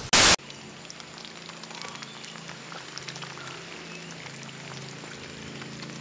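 Light rain pattering on wet ground and puddles: a steady soft hiss with scattered faint ticks. It is preceded right at the start by a brief, loud burst of noise.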